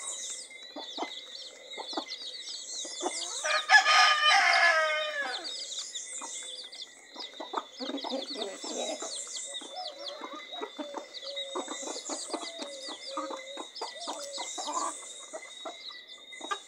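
Domestic chicks peeping almost constantly over the low clucking of hens. About four seconds in comes one loud, drawn-out call from an adult chicken that falls in pitch at its end.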